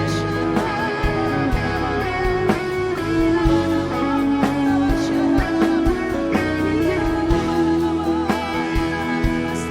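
Worship band playing an instrumental passage, guitar lines over a steady beat.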